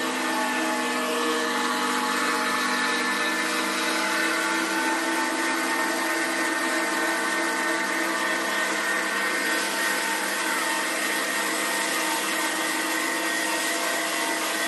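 An electric motor running steadily, a constant hum with several fixed tones over a hiss.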